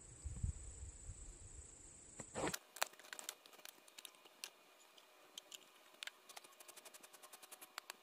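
Crickets chirring steadily with a few soft knocks. About two and a half seconds in the background cuts off, and a run of light clicks and taps follows, becoming a quick, even ticking near the end.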